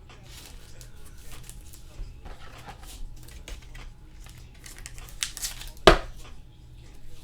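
Trading cards being handled: soft rustling of cards and plastic with scattered light clicks, and a sharper click near six seconds in.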